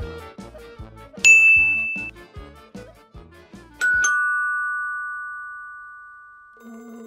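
Cheerful background music with a steady beat, with a short, bright ding about a second in as an on-screen order button is tapped. About four seconds in the music stops and a two-note ding-dong doorbell chime rings, the second note lower, and fades slowly before the music starts again near the end.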